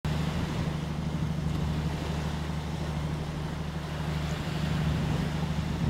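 Boat engine running steadily under way, an even low drone over a constant hiss.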